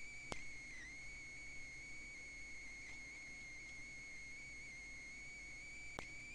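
Faint, steady high-pitched whine with fainter overtones, dipping briefly in pitch about a second in. Two short clicks, one just after the start and one near the end.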